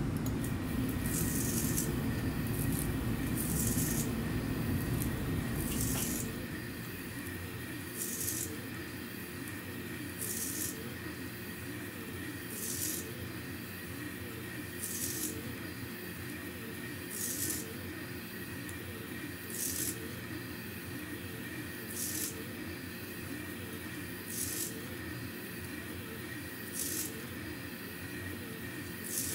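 Delta 3D printer rebuilt as a CNC flat coil winder running a fast winding pass: a steady stepper-motor whine with a short hiss about every two and a half seconds as the roller head laps the coil, laying copper wire. The low running sound is heavier for the first six seconds, then settles.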